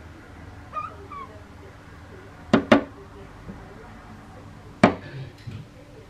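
Herring gulls at a window pane: two short mewing calls about a second in, the second falling slightly, then sharp taps of a beak on the glass, a quick double tap midway and a single loud tap near the end, followed by a couple of faint ones.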